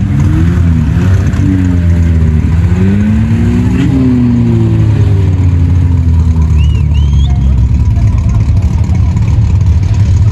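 Vehicle engine revving under load, rising to a peak about four seconds in and then easing back, over a steady low rumble.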